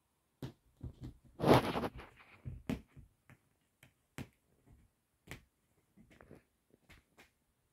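A cat scrambling and pouncing on a quilted bedspread: a loud rustle of fabric about one and a half seconds in, then scattered light ticks and scratches as its claws catch the cover.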